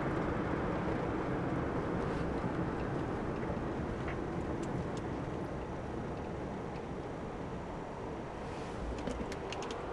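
Road and engine noise from inside a moving car: a steady low rumble that eases off slightly toward the end, with a few faint clicks in the last second.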